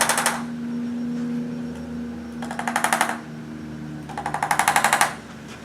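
Handheld chiropractic adjusting instrument firing rapid clicks, about a dozen a second, in three short bursts: one at the start, a shorter one near the middle and a burst of about a second near the end.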